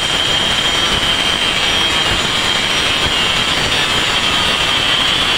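Handheld electric cutter with a circular blade running at full speed and cutting through bamboo poles: a steady high whine over loud, noisy cutting.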